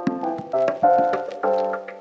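Background music: a piano-like keyboard playing a melody of separate struck notes that ring and fade.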